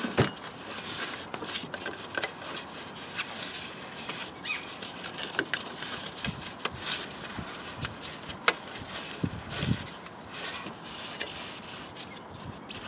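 Ribbed serpentine (auxiliary drive) belt being worked back onto the engine's pulleys by hand: rubbing and scraping of rubber on metal with scattered light clicks and a few dull knocks.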